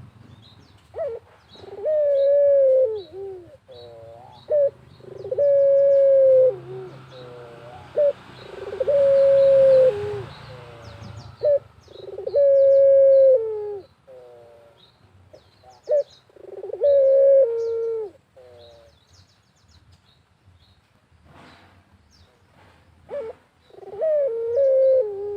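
A puter (domestic Barbary dove) cooing, long drawn coos repeated about every three to four seconds, with a pause before a last coo near the end. Small birds chirp high and short in the background.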